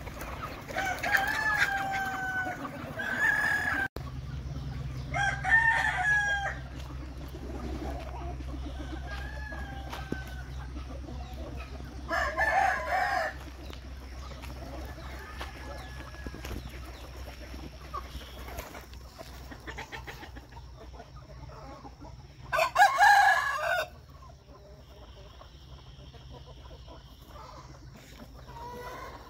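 A flock of free-range native chickens calling and clucking, with roosters crowing several times; the loudest crow comes about three-quarters of the way through.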